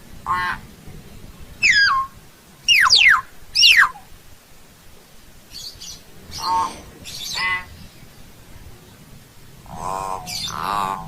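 Hill myna calling: a run of loud, sharply falling whistles in the first few seconds, then shorter calls spaced out with pauses between them.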